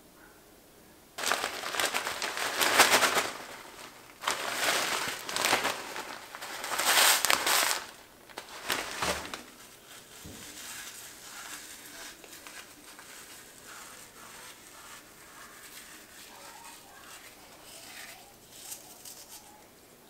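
Ritz crackers crushed by hand in four loud, crackly bursts over the first eight seconds or so, then softer crackling as the crumbs are sprinkled over the dish.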